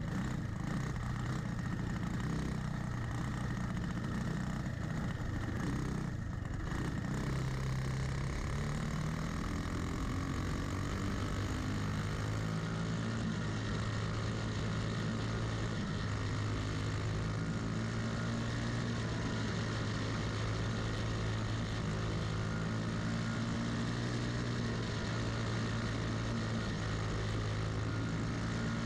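Cage kart's Briggs & Stratton Animal single-cylinder four-stroke engine running at speed, heard from onboard, its pitch rising and falling slightly with the throttle around the oval.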